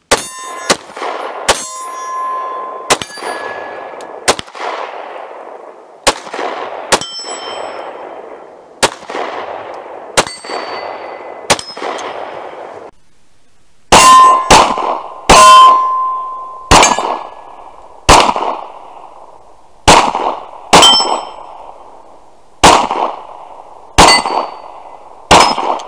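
CZ P10C 9mm pistol firing about twenty shots in steady slow strings, with a short pause about halfway; many of the shots are followed by the ringing clang of a steel target being hit.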